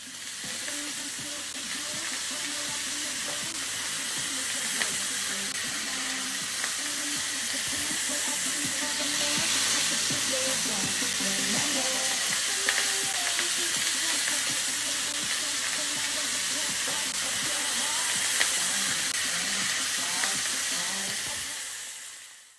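Chicken meatballs sizzling in a hot pan, a steady crackling hiss with a few light clicks, fading out near the end.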